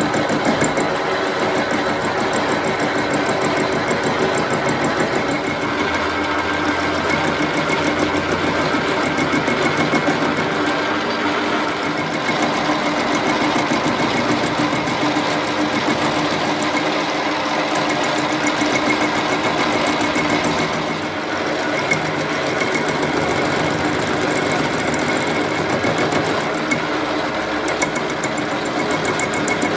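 Metal lathe running steadily while machining an iron bar: a dense, rapid mechanical clatter with a steady whine, easing briefly about two-thirds of the way through.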